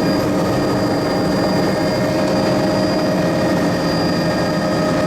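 Helicopter in flight: a steady, loud engine and rotor drone with constant whining tones.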